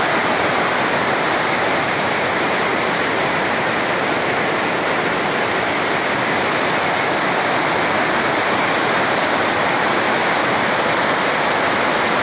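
Whitewater rapids of a mountain river rushing through rocks: a loud, steady rush of fast-flowing water.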